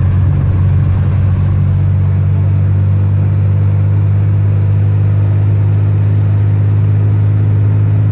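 Car engine and tyre noise heard from inside the cabin while driving on a hail-covered road: a steady low drone with no change in pitch.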